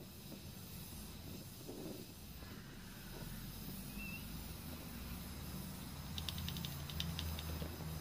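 THB1350YS hermetic refrigeration compressor running, a steady low mains-frequency hum that grows louder about three seconds in and again near the end, with a brief run of faint ticks.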